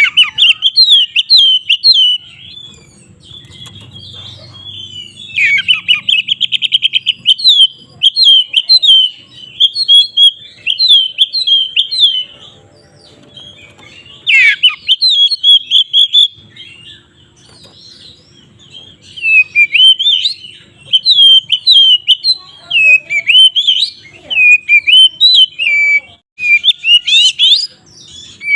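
Oriental magpie-robin (kacer) singing loud, varied phrases of quick whistled notes in bursts with short pauses between them, with a fast rattling trill about six seconds in.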